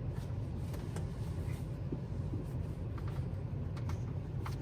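Car idling, a steady low rumble heard from inside the car, with a few faint clicks.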